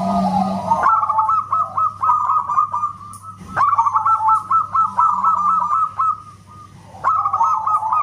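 Zebra dove (perkutut) cooing in rapid runs of short staccato notes, in three bouts separated by brief pauses.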